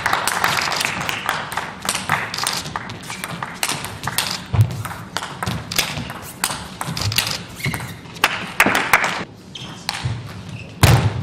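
Table tennis rallies: the plastic ball clicking in quick succession off the rackets and the table, with a couple of heavier thuds.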